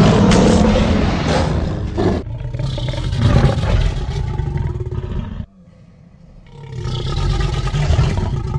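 Mixed dinosaur-roar sound effects for a Spinosaurus. A loud, harsh roar fades about two seconds in. A growling roar follows and cuts off suddenly, and after a second's pause another roar begins.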